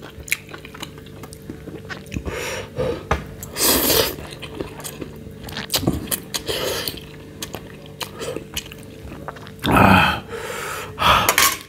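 A person eating spicy Korean instant ramen close to a clip-on microphone: chewing, with several loud slurps of noodles, the loudest about ten seconds in.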